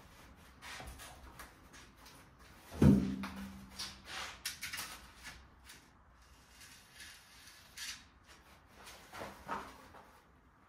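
Handling noises as a board template is pressed and fixed against a wall: a loud knock about three seconds in with a brief low ringing hum after it, then a series of short scrapes and rustles.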